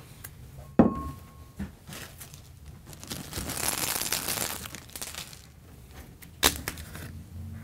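A ceramic bowl knocks down onto a wooden desk, then a bag of small pills is poured into it, giving a rattling hiss for about two seconds. A second sharp knock comes near the end.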